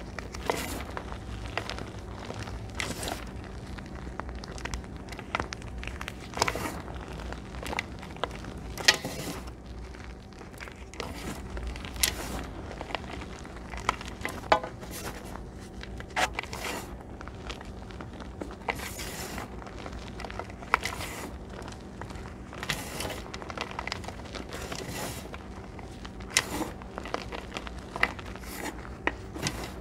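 Dyed gym chalk crunching and crumbling as fingers squeeze and grind the chunks into powder, a steady stream of irregular crunches and crackles.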